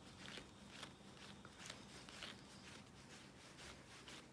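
Faint, soft scratchy strokes of a dog brush's tines drawn back and forth through a Standard Poodle's leg fur, about two strokes a second.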